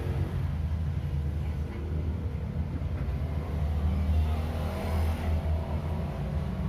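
Steady low-pitched hum that holds at much the same level throughout.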